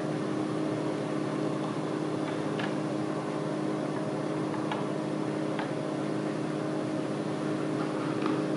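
Steady mechanical hum made of several constant tones over a faint hiss, with a few faint light clicks spread through it.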